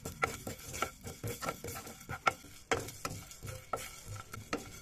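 A wooden spatula stirring and scraping coriander and cumin seeds as they roast in a pan, in an irregular run of short scrapes and clicks, roughly two a second.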